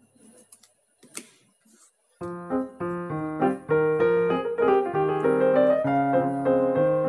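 Background piano music that starts about two seconds in, after a short quiet gap holding a few faint clicks.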